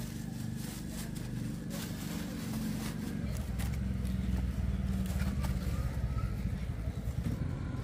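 A vehicle engine humming at low pitch, growing a little louder about three seconds in. Over it are scattered rustles and clicks of a plastic bag being stuffed into a woven basket that is then lifted.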